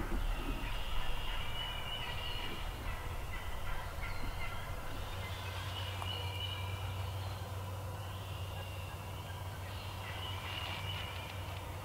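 Wild turkey tom gobbling.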